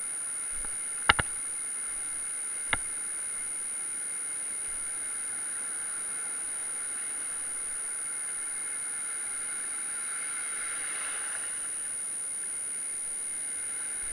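Muffled wash of breaking surf heard through an action camera's waterproof housing: a steady hiss with a thin high whine over it. There are sharp knocks on the housing a little after a second in, with one more near three seconds.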